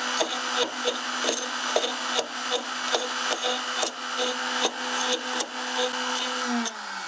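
CNC router spindle running as its bit cuts into a square wood blank turning slowly on a drill-driven lathe, each corner of the blank striking the bit in rough knocks, about two to three a second. The maker is pretty sure the downcut bit is grabbing the stock and throwing it down. Near the end the router is switched off and its hum falls as it spins down.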